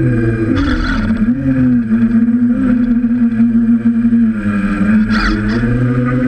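DJI F550 hexacopter's six electric motors and propellers buzzing steadily, heard from on board; the pitch wavers up and down as the drone manoeuvres, dipping briefly a little over four seconds in.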